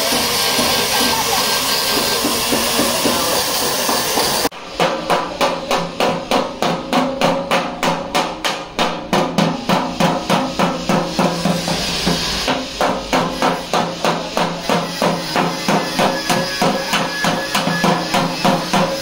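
A steady rushing noise, then from about four seconds in a fast, even hammering, about three to four blows a second: a hammer beating out a dented car body panel in accident repair.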